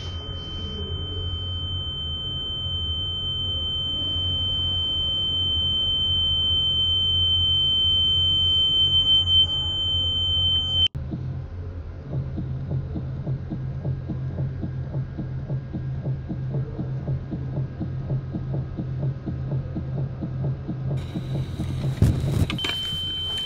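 Eerie sound-design drone: a steady high-pitched ringing tone over a low hum swells for about eleven seconds, then cuts off suddenly. A low pulsing drone follows, and the high ringing tone comes back near the end.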